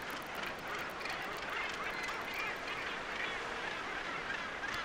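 A northern gannet colony with many gannets calling at once: a continuous din of overlapping calls, with a few nearer calls standing out in the middle.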